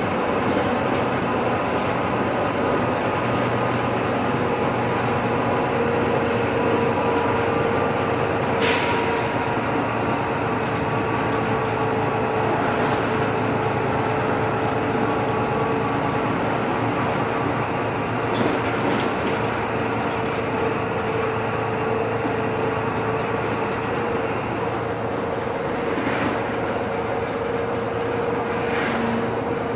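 City bus driving along, heard from inside the cabin: steady engine and road noise with a constant whine. A few brief knocks or rattles come through, one about nine seconds in and two more near the end.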